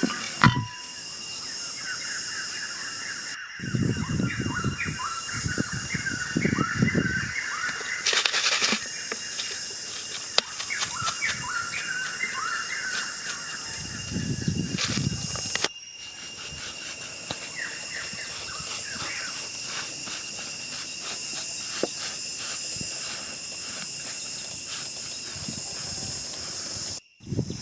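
Many small birds chirping rapidly and repeatedly over a steady high hiss, with a few low rumbles; the sound breaks off abruptly several times.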